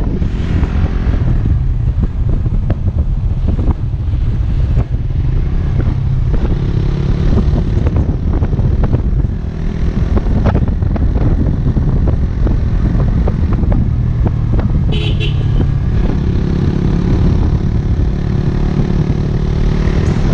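Motorcycle engine running steadily while riding, under heavy wind buffeting on the microphone and road rumble.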